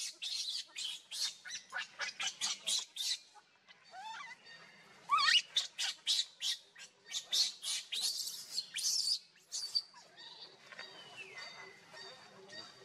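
Newborn macaque screaming: rapid runs of short, high-pitched shrieks with a few rising squeals about four to five seconds in. These are the distress cries of an infant left alone on the ground away from its mother, and they drop off to faint cries after about ten seconds.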